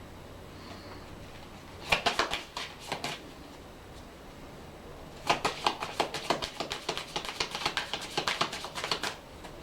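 Tarot cards being shuffled by hand: a short burst of card clicks about two seconds in, then a run of rapid card clicking for about four seconds.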